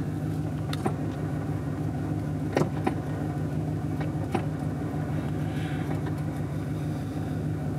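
A 2001 GMC Sierra 2500HD pickup's engine idling steadily in reverse, heard from inside the cab, with a few light clicks.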